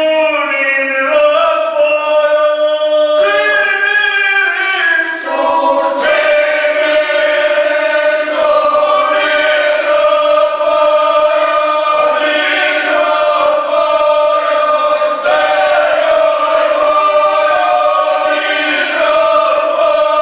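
A small men's folk singing group singing together unaccompanied, several voices holding long notes and moving between them slowly.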